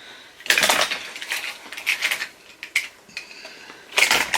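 Small hard plastic toy figures clattering and knocking together as they are handled and set down, in a busy bout about half a second in, scattered clicks after, and another bout near the end.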